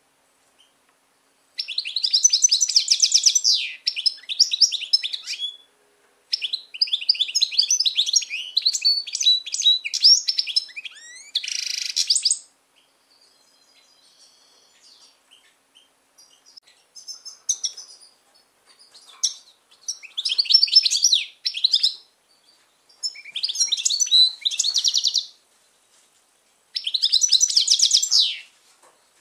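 European goldfinch singing in a cage: phrases of fast, high twittering a few seconds long, separated by short pauses, with one short harsh buzzy note about twelve seconds in.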